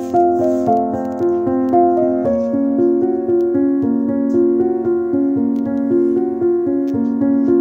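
Background music: a piano melody of steady notes changing pitch every fraction of a second.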